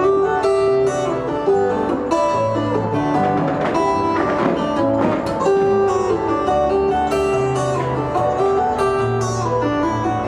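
Acoustic guitar playing an instrumental, picked melody notes ringing over low bass notes, with a flurry of quick strums about four seconds in.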